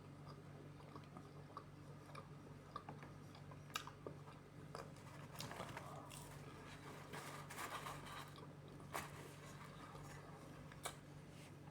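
A person chewing and biting food, with a few sharp, crisp bites standing out among softer chewing. A steady low hum runs underneath.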